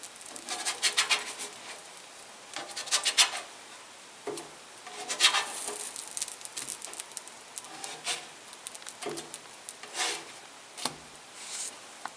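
Spatula scraping and sliding pancakes across a griddle: a series of short rasping strokes, a few seconds apart.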